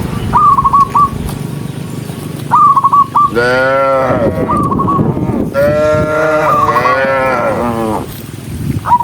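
Cattle mooing: one long call about three seconds in and a longer, drawn-out one from about the middle to near the end. Between them come quick groups of three or four short, high calls.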